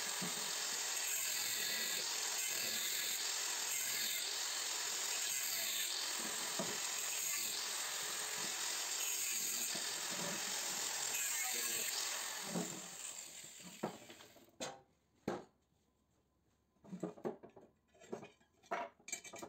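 Angle grinder running against a rectangular steel tube, a steady high-pitched grinding noise that winds down about twelve seconds in. After that, several sharp clinks and knocks of the steel pieces being handled on the table.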